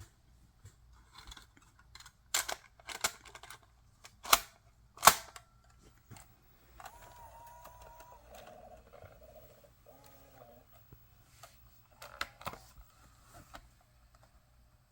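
Several sharp clicks and knocks, the loudest about five seconds in, with a few faint short electronic tones a couple of seconds later.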